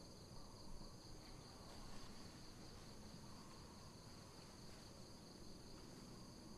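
Faint, steady high-pitched insect chorus, holding one unchanging drone throughout.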